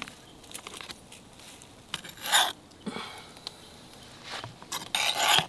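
Metal serving spoon scraping and clinking against a frying pan and plate as stew is served: a few short scrapes and clinks, the longest and loudest near the end.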